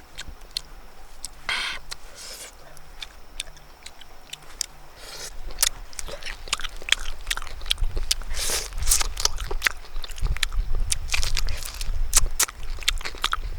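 Close-up eating sounds: crunchy bites and chewing of cooked fish, sparse at first and coming thick and fast from about halfway through.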